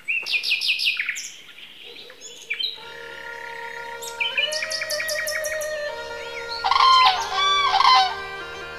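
Songbirds chirping and calling in quick repeated notes, loudest near the end. About three seconds in, a steady sustained musical drone comes in underneath.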